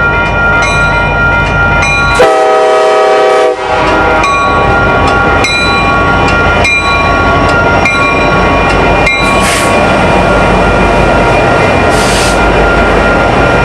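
Locomotive horn sounding steady chords over the rumble of a train, with a brief change in the horn's chord about two seconds in and short hisses later on.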